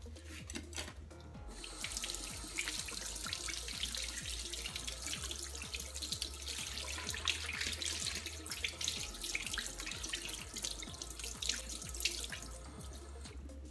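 Kitchen tap running over a salt-cured duck breast held in the stream, water splashing off the meat into the sink as the salt cure is rinsed away. The water comes on about two seconds in and shuts off near the end.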